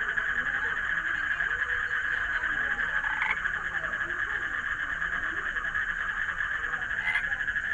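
Frog chorus: a steady, continuous high trill from calling frogs, with brief louder calls about three seconds in and again near the end.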